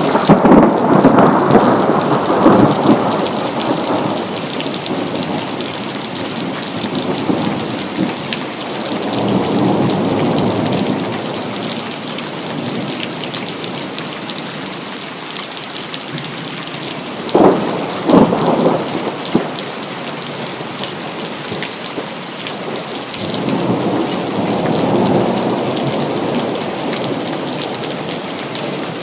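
Steady rain with thunder. A loud clap of thunder comes right at the start, then a rolling rumble about a third of the way in, two sharp cracks a little past the middle, and another long rumble near the end.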